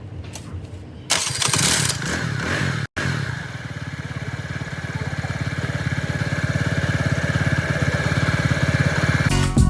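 A TVS Jupiter scooter's single-cylinder engine starts about a second in with a loud burst, then settles into a steady, evenly pulsing idle.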